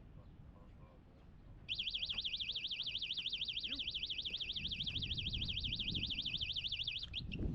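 An electronic alarm tone warbling rapidly up and down, starting a couple of seconds in and holding steady for about five seconds before cutting off.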